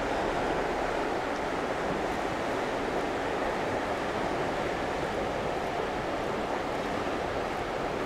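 A small river running fast just after a flood: a steady rushing of water with no let-up.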